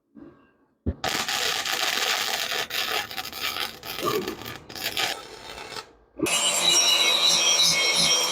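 Electric welding arc crackling and sizzling as the seat brackets are welded to the steel go-kart frame: one weld of about five seconds, then after a short pause a second of about two seconds, each starting and stopping abruptly.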